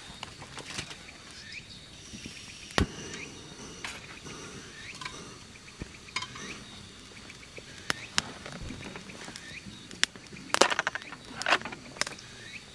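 Outdoor evening ambience with insects trilling steadily and scattered short chirps. A few sharp clicks of handled camping gear break in, with a quick rattling run of knocks about ten and a half seconds in, the loudest moment.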